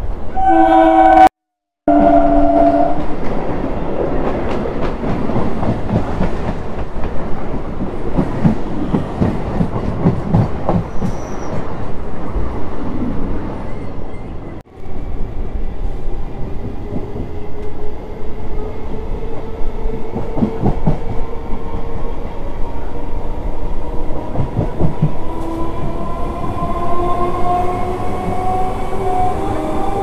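Indian Railways EMU local train at speed, heard from the open doorway: horn blasts in the first few seconds, then a steady rumble with the clatter of wheels over rail joints. In the second half a whine rises steadily in pitch as the train picks up speed. The sound cuts out briefly twice.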